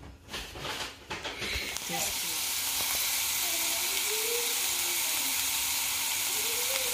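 Diced onions and green bell peppers sizzling steadily in olive oil in a frying pan. The sizzle sets in about two seconds in, after a few knocks.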